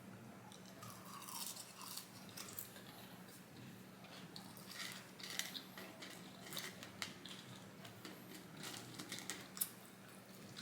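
Close-up eating: faint chewing and crunching with scattered small mouth clicks, over a faint steady low hum.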